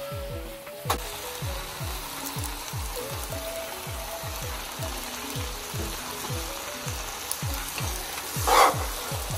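Glass noodles and vegetables sizzling in a wok as they are stir-fried, with a brief louder burst of sizzle or scraping near the end. Background music with a steady deep beat, about three beats a second, plays throughout.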